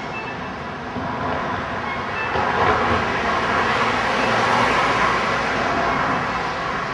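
Street traffic noise: a passing vehicle swells to a peak around the middle and then fades.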